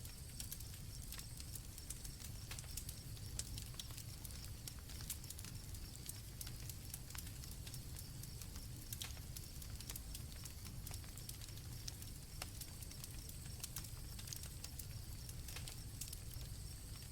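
Campfire crackling, with frequent sharp pops over a low steady rumble of the burning wood, and crickets chirping high and steady.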